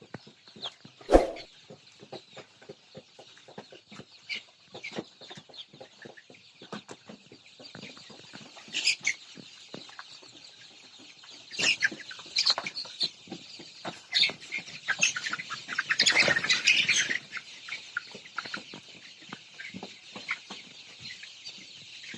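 A flock of Sonali chickens clucking and chirping, with a busy patter of small clicks throughout and a loud knock about a second in; the calls grow thicker and more excited for a couple of seconds past the middle.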